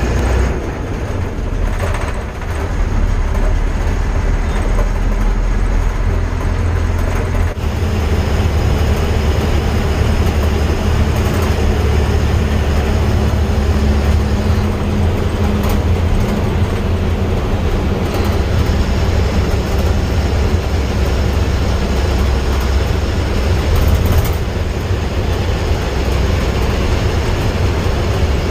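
A vehicle travelling along a road: a steady, loud low rumble of engine, road and wind noise that hardly changes throughout.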